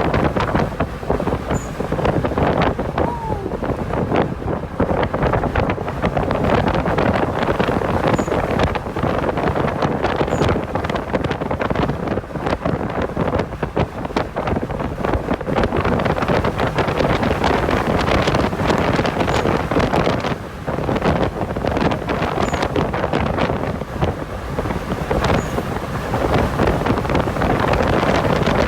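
A car driving, with heavy wind buffeting on the microphone over the engine and road noise.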